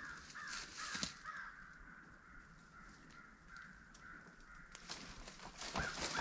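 A faint, rapid run of raspy animal calls, then a longer drawn-out call. Near the end comes louder rustling and crackling of brush and vines.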